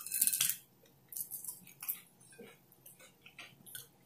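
Close-up crunchy chewing of chips: a loud burst of crunching in the first half second, then short, irregular crunches.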